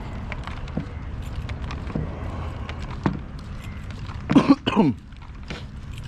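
A person coughs twice in quick succession about four seconds in, each cough dropping in pitch, over a steady low rumble and a few light clicks.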